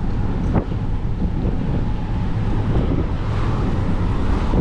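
Wind buffeting the microphone from a moving car, a loud, steady rumble.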